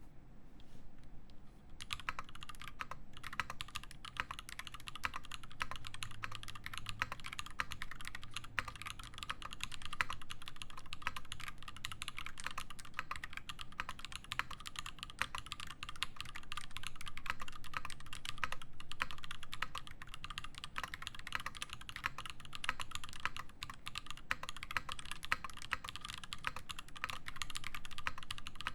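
Fast, continuous typing on an Iron180 mechanical keyboard with lubed Zaku switches in a brass plate and GMK keycaps. It is a dense, steady stream of key clacks that starts about two seconds in.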